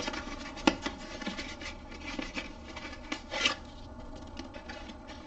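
Cardboard packaging sliding and rubbing as a boxed device is pulled out and set down, with a sharp tap a little under a second in and a brief scrape about three and a half seconds in.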